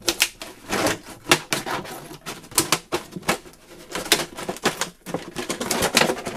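Scissors cutting through a plastic gallon milk jug: a run of sharp, irregular snips, a few a second.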